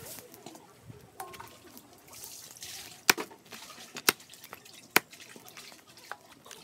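A large knife chopping chicken on a wooden chopping board: three sharp chops about a second apart.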